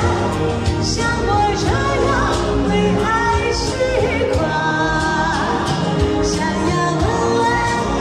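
A singer with a wavering vibrato performs a Chinese pop song live over instrumental accompaniment.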